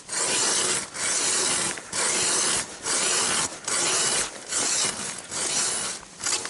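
Hand ice auger boring a hole: a rhythmic scraping rasp, about one stroke a second, with a short dip between turns.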